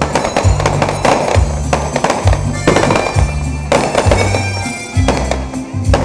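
Fireworks going off with sharp bangs and crackles over loud music with a regular bass beat and sustained tones.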